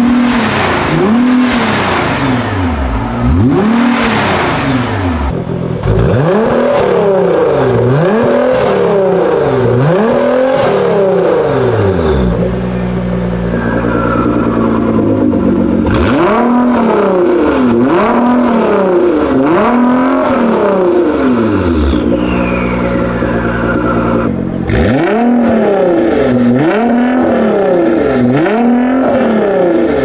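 Nissan GT-R R35's twin-turbo V6 free-revving in quick blips, each rising sharply and falling back, about one every second and a half in runs of four or five, with short spells of steady idle between runs. The early revs go through the stock exhaust; after a cut about six seconds in they go through an Fi Exhaust valvetronic catback with catless downpipes, valves open.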